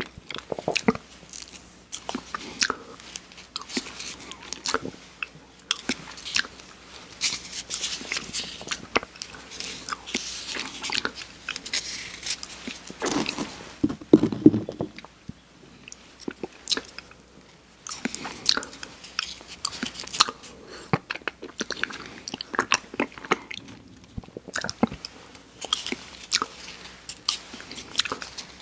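Close-miked mouth sounds of eating soft-serve ice cream from wafer cake cones: wet lip smacks, biting and crunching, a dense run of sharp clicks and crackles. A louder low thump comes about halfway through.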